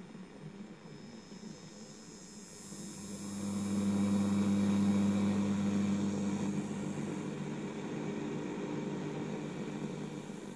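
Long-wave AM radio reception from an Integral receiver's loudspeaker as the tuning knob is turned: a hiss of static swells about three seconds in, with a steady low hum under it, then eases off.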